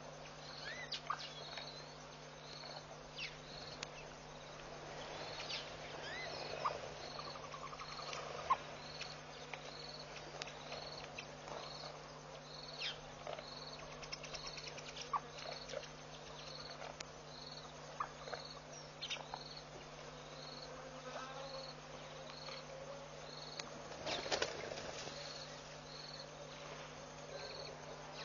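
An insect chirping in a steady rhythm, about one short high chirp a second, over a steady low electrical hum. Scattered short clicks and chirps come through, and there is a brief louder noise near the end.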